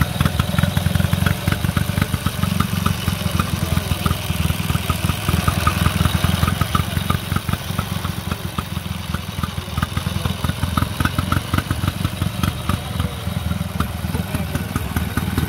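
Vintage Douglas flat-twin motorcycle engine running steadily, with a fast even beat and a light repeated ticking over it.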